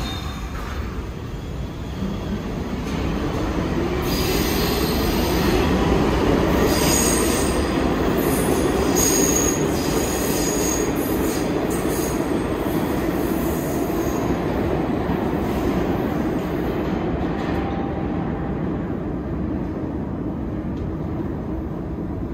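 New York City subway train moving through the station: the electric motors whine up in pitch and later back down, with steel wheels squealing on the rails and a steady rumble. It builds to its loudest about six seconds in and fades near the end.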